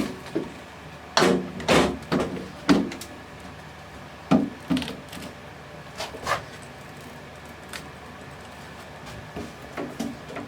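Irregular wooden knocks and clatters, as of wooden boards or parts being handled and set down: a quick run of loud ones in the first three seconds, a few more a little later, and fainter taps near the end.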